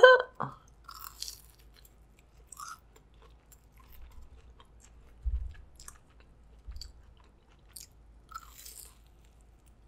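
Close-miked chewing of a Hot Cheeto-crusted king crab leg: soft mouth sounds with scattered crisp crunches and crackles. Two dull low thumps come midway.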